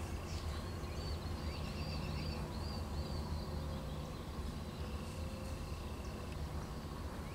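A bird sings a quick run of repeated chirping notes about one to three seconds in, over a steady low outdoor rumble.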